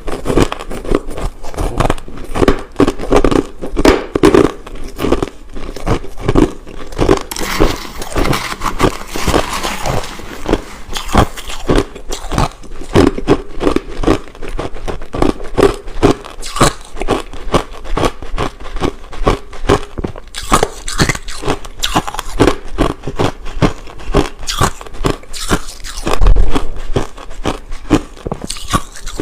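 Crushed ice being bitten and chewed close to the microphone: a dense, irregular run of crisp crunches, with one especially loud crunch near the end.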